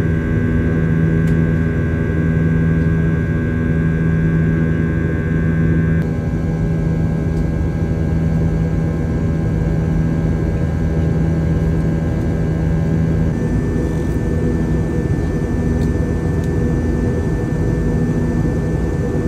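Airbus A320-200 jet engines running at a steady drone with a low hum. A high whine drops out about six seconds in, and the tone shifts slightly again about thirteen seconds in.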